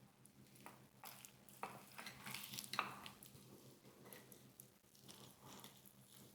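Faint eating sounds: a fried chicken wing in honey barbecue sauce being bitten into and chewed, with a cluster of soft, wet crunching about two seconds in and small clicks after it.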